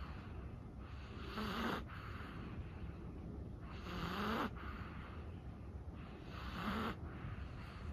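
Chihuahua snoring lightly in its sleep: three slow breaths about two and a half seconds apart, each with a low snore.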